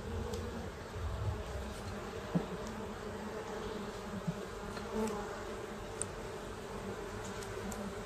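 Honey bees buzzing steadily around an open hive, with a few light knocks of wooden frames and a hive tool.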